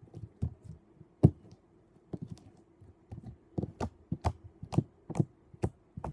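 Purple glitter slime being poked and pressed with fingertips on a metal tray, giving about a dozen irregular sharp clicks and pops, the loudest about a second in.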